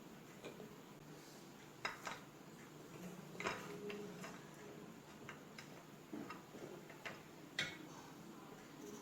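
A person biting and chewing pieces of slate (slate pencil bars). The sound is a series of sharp, crisp crunches at uneven intervals, loudest about two, three and a half and seven and a half seconds in.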